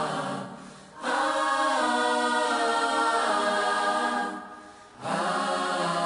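A choir singing long held chords, breaking off briefly twice: about half a second in and again a little after four seconds.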